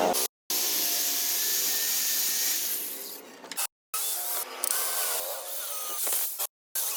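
Steady hissing noise of woodworking tools at work on wood, in short stretches broken by abrupt cuts to silence.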